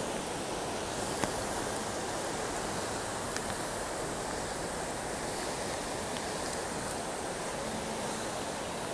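Storm-swollen river running in flood: a steady, even rush of fast, muddy water.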